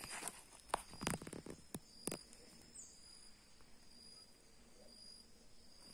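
Faint outdoor ambience: a high insect call repeating in short pulses, with a few soft clicks and knocks in the first two seconds.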